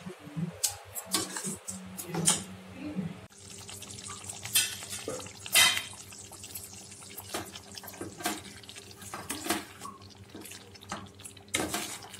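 A steel spoon stirring thick pav bhaji in a steel pan, scraping and clinking against the metal; about three seconds in the sound changes to the thick curry simmering, with frequent bubbles popping, occasional spoon clinks and a steady low hum behind.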